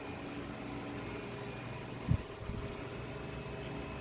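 A steady mechanical hum with several faint held tones in it, and one short low thump about two seconds in.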